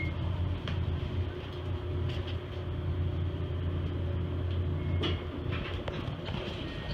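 A steady low hum runs throughout, with a few faint clicks of footsteps and a dog's claws on a tiled floor.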